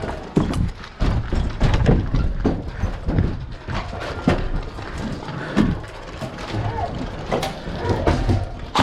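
Footsteps and gear knocking as an airsoft player moves on foot: a run of irregular thuds and clicks.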